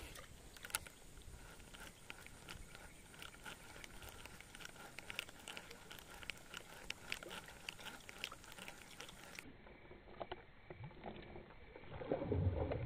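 Faint, irregular light clicks and ticks, several a second, over a quiet hiss, with a low rumble coming up near the end.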